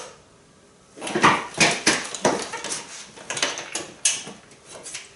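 A man's forceful breaths and short grunts as he heaves a pair of heavy 35 kg dumbbells up to his shoulders for a seated press, with a few sharp knocks of the weights.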